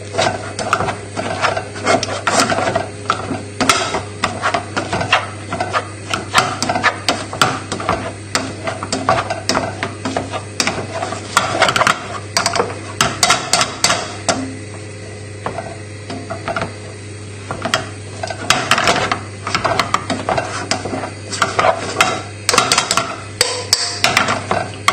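Wire potato masher pounding boiled potatoes in a saucepan, its metal head knocking and scraping against the pan bottom in quick, uneven strokes, with a pause of a few seconds a little past the middle.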